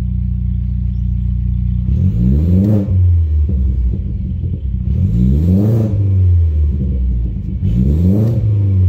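BMW 330e's B48 turbocharged four-cylinder engine idling and then revved briefly three times, each rev rising and falling back to idle. It is running on a newly fitted B58TU high-pressure fuel pump, being checked for leaks or faults.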